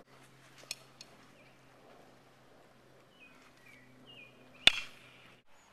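A baseball bat striking a ball: one sharp crack about four and a half seconds in. Birds chirp a few times just before it.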